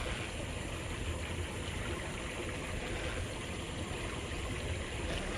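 Steady rush of water pouring over a small river waterfall.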